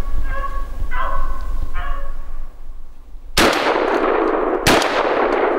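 Beagles baying on a rabbit's trail, a few short bays in the first two seconds. Then two loud blasts from a semi-automatic 16-gauge shotgun, just over a second apart, each with a long echoing tail.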